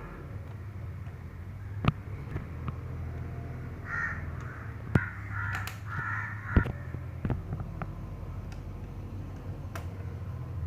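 Sharp clicks and knocks of hands handling a laptop and its small parts, about three of them loud, over a steady low hum, with a run of short rasping sounds in the middle.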